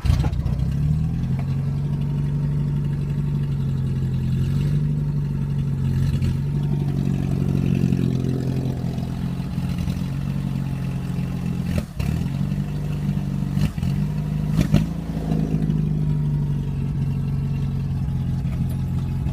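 Toyota KE30 Corolla's four-cylinder engine starting up and running through only half an exhaust, heard from inside the car, with a steady drone that rises and falls slightly a few times. A couple of sharp clicks come in the second half.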